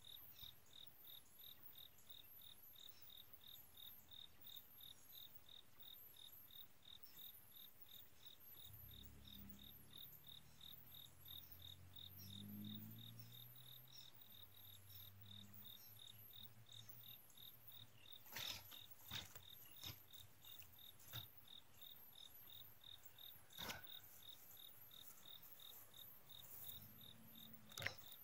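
Faint, steady, rapidly pulsing chirping of insects. A low rumble swells and fades in the middle, and a few sharp clicks come in the second half.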